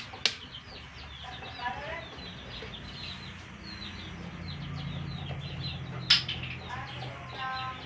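Chickens clucking, with many short high calls throughout. Two sharp knocks cut through: a small one just after the start and a louder one about six seconds in.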